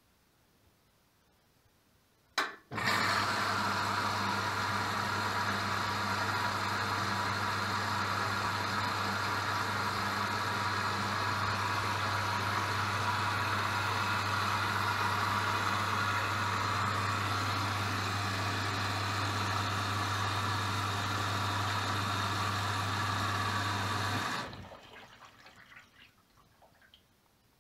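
A washing machine running water through its drum: a click, then a steady sound of flowing water over a constant low electrical hum for about twenty seconds, which then dies away.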